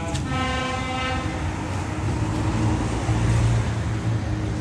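A train horn sounds one steady blast of about a second at the start, over the steady low rumble of a diesel engine idling at the platform.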